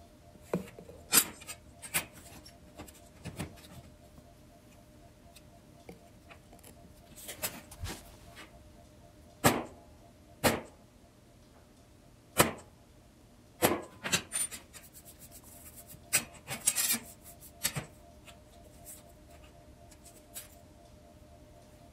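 Irregular sharp knocks and clinks of steel: 11-gauge vent pieces being set down and tapped with a hammer on a quarter-inch steel smoker door lying on a steel welding table, with a brief scraping of metal on metal late on. A faint steady hum sits underneath.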